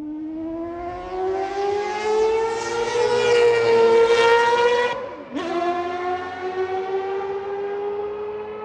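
Mazda 787B's four-rotor rotary engine accelerating hard, its high, siren-like note climbing steadily. About five seconds in the pitch drops briefly at an upshift, then climbs again under power.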